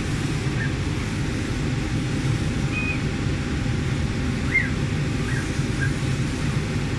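Laser cutting machine running as its head cuts through fabric: a steady low mechanical rumble, with a few faint short high chirps and whines scattered through it.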